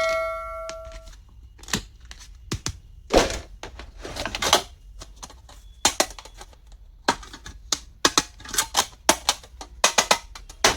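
Small plastic stationery items being handled: a run of sharp clicks, taps and short rustles, some in quick clusters. A ringing tone fades out over the first second.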